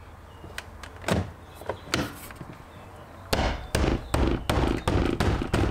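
A fist knocking a BMW E90 door trim piece into place, snapping its clips into the door panel. A few light clicks and knocks come first, then from about three seconds in about seven sharp blows in quick succession, roughly two to three a second.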